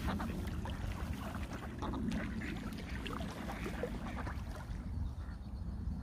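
Ducks quacking: a string of short calls through the first four seconds or so, then quieter, over a low steady rumble.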